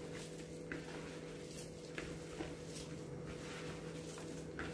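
A hand kneading minced mutton with roasted gram powder in a plastic bowl: faint, irregular squishing over a steady low hum.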